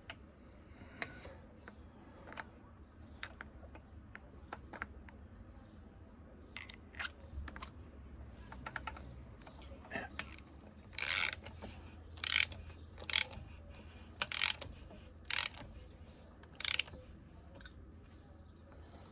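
Scattered light clicks of metal parts being handled, then a ratchet wrench clicking in six short bursts about a second apart as nuts are run down on a motorcycle engine being reassembled.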